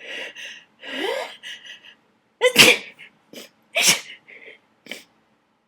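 A person's sneezing fit from attic dust: catching, gasping in-breaths with a rising pitch, then two loud sneezes a little over a second apart midway, with a few shorter bursts around them.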